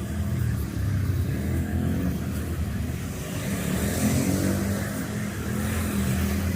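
A motor running steadily, with a hiss that swells about halfway through.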